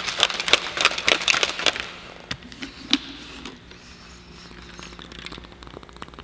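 Rapid, irregular crackling clicks from a plastic shaker bottle being handled for about two seconds, then a couple of single clicks, before it goes quiet while pre-workout is drunk from the bottle.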